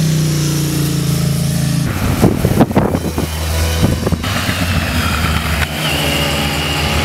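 Motorcycles riding through a bend with engines running. About two seconds in there is a rougher, louder stretch lasting a couple of seconds as one bike passes close by.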